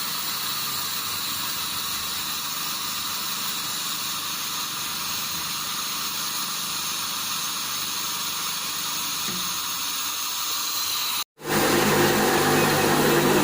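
A steady hiss. About eleven seconds in it cuts out for a moment and a louder, steady low machine hum takes over.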